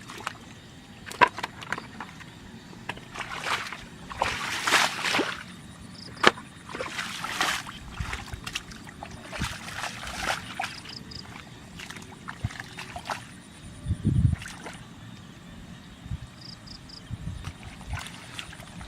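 Water sloshing and splashing in irregular swishes, with a few sharp knocks and a single low thump about fourteen seconds in.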